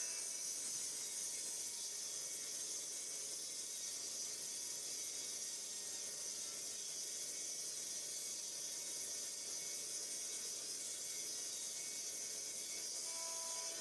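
Steady high-pitched hiss with no distinct events, likely background or recording hiss once the sawing has stopped.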